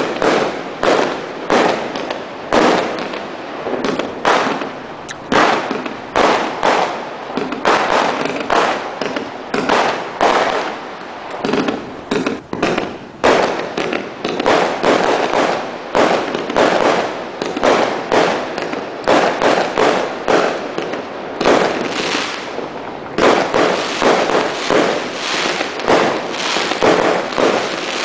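338-shot consumer fireworks cake firing shot after shot, a rapid, unbroken string of launch reports and aerial bursts at about two a second.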